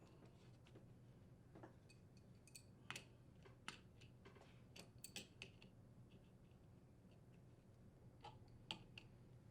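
Near silence with a handful of faint, scattered clicks and taps: an adjustable wrench tightening the nut that holds a vent-hood blower wheel on its motor shaft.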